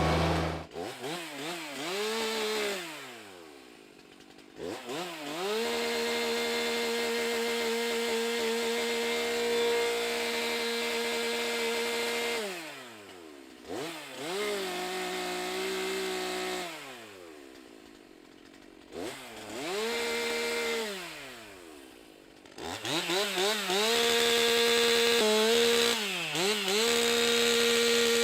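Stihl MS 362 C-M two-stroke chainsaw revved up several times, holding at full throttle for several seconds and dropping back toward idle in between, the longest run near the end.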